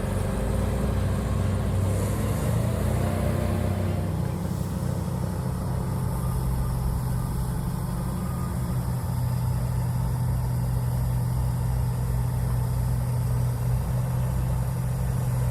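A large vehicle engine running steadily, a low, even hum that shifts slightly in pitch about four seconds in.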